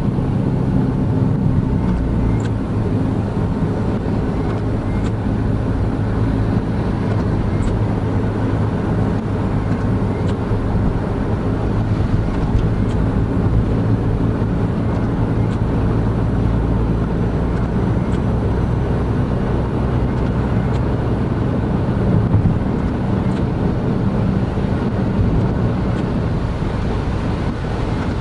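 Honda N-BOX Custom kei car cruising at steady highway speed, heard from inside the cabin: the 660 cc intercooled turbo engine hums low and even under steady road and tyre noise. Faint ticks come every couple of seconds.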